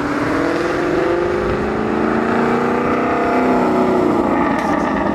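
Ford Mustang coupe accelerating along the road past the listener, its engine note climbing steadily for about three seconds and then easing back down as it goes by.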